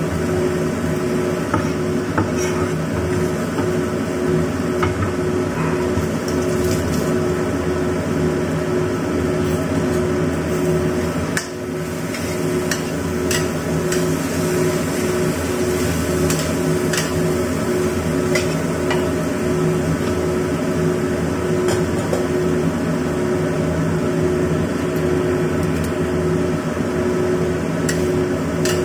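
A metal spatula scraping and tapping in a stainless-steel wok as vegetables are stir-fried, with scattered clicks and knocks over a steady low hum. The hum dips briefly a little before halfway.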